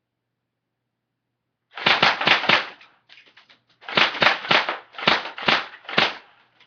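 Airsoft gun firing quick strings of shots, about four a second, in several groups, ending with a single shot near the end.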